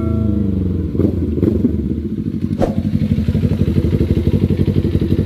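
Kawasaki Ninja 400 parallel-twin engine running through an Akrapovic full exhaust, its revs easing down in the first second and settling into a steady, pulsing idle, with a few sharp clicks.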